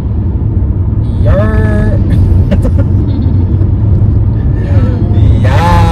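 Steady low road and engine rumble heard from inside a moving car's cabin. A short voice rises over it about a second in, and laughter comes near the end.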